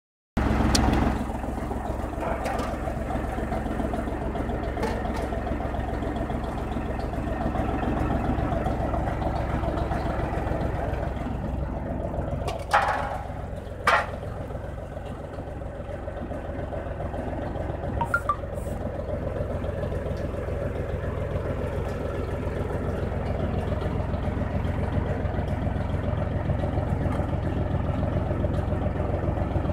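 Tractor engine running steadily as it drives a PTO-powered flat-die pellet mill through the shaft, the mill pressing feed into pellets. Two sharp knocks come about halfway through.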